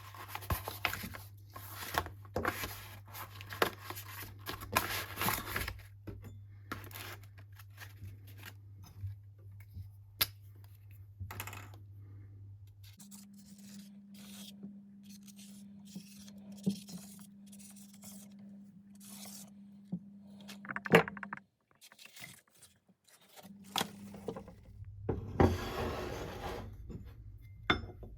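Irregular scraping and rubbing strokes of hand work, busiest at the start and again near the end, over a steady low hum, with one sharp knock about three quarters of the way through.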